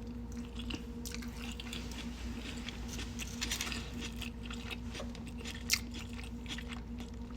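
A person chewing food close to the microphone, with scattered wet clicks and crunches from the mouth. A steady low hum runs underneath.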